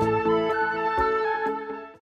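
Instrumental background music with sustained pitched notes and regular note changes, fading out over the last half second.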